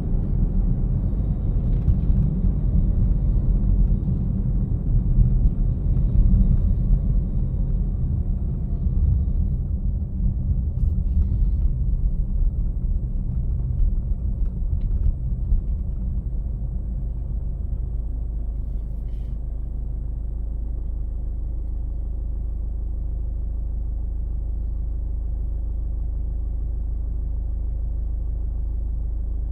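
A car driving on city streets: low, uneven road and engine rumble. After about eighteen seconds it settles into a steadier, slightly quieter hum.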